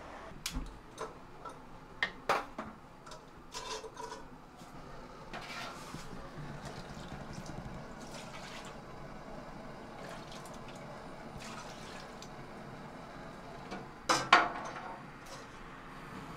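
Eating spicy hot pot: scattered clicks of utensils against a bowl and wet slurping of broth and noodles, with a louder burst about fourteen seconds in.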